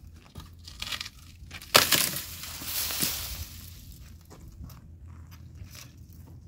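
Dry dead tree branch snapping off and crashing down, its brittle twigs crackling loudly and fading over about a second and a half. Smaller crackles and scrapes of dry brush on stony ground follow as it is dragged.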